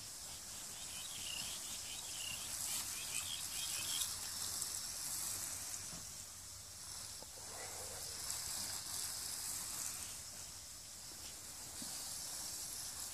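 Garden hose spraying water onto the potting soil of a tiered planter: a steady hiss that swells and fades as the spray moves around.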